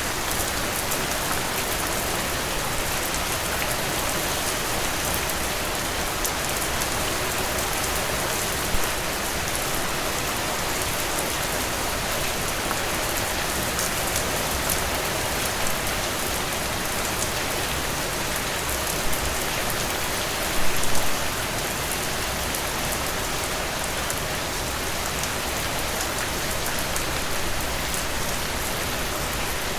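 Heavy rain falling steadily on a surface, a dense even hiss with occasional louder drop impacts, a cluster of them about two-thirds of the way through.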